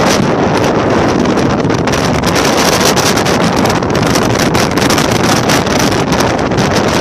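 Strong gusty storm wind buffeting the microphone: a loud, continuous rush with rapid crackling pops.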